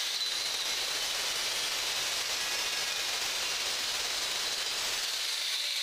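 Handheld electric tile cutter running through a ceramic wall tile: a steady, harsh hissing grind with a faint high whine, unbroken throughout.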